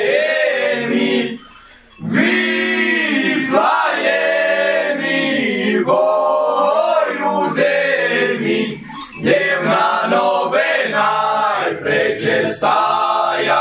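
A group of young male carolers singing a Ukrainian Christmas carol unaccompanied, several voices in unison on long held notes, with a short breath pause about two seconds in.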